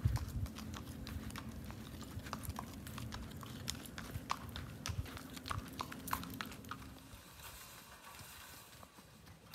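Horse walking on pavement, its hooves giving a scatter of sharp, irregular clip-clops over a low rumble. The clip-clops stop about seven seconds in.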